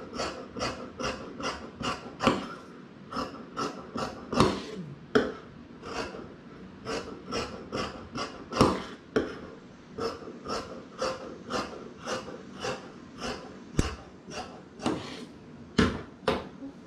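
Tailor's shears snipping through fabric in a steady run of short cuts, about three a second, trimming the seam allowance, with a few louder knocks of the shears or ruler on the wooden table.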